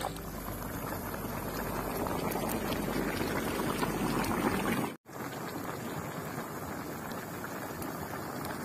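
Chicken and vegetables in woku spice broth simmering in a large wok, a steady bubbling. It breaks off for an instant about halfway through, then carries on the same.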